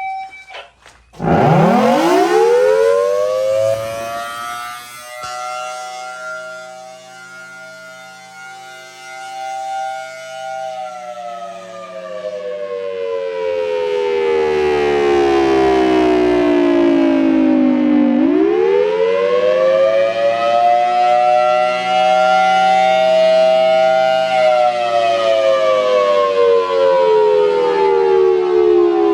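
Outdoor warning siren with two close tones, winding up from silence about a second in, holding its top pitch, then sliding slowly down before winding up again and falling once more: a slow wail. Its loudness sinks and swells as it runs.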